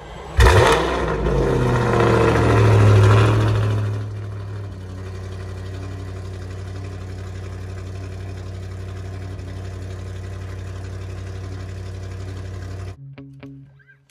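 Audi RS5's 4.2-litre V8 starting up and flaring in revs for a few seconds, then settling into a steady idle that cuts off abruptly about a second before the end.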